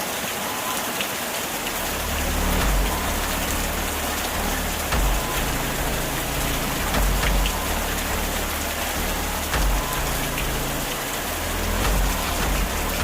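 Steady rain falling, with a low rumble of thunder that comes in about two seconds in and swells again every two to three seconds.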